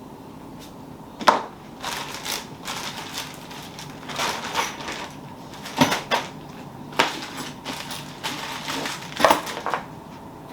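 Irregular clattering and rustling of objects being handled and pushed into a container, with several sharp knocks among them.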